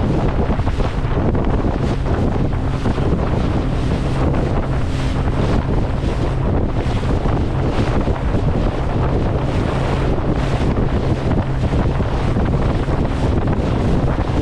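Wind buffeting the microphone on a small fishing boat at sea, over a steady low drone from the boat's engine.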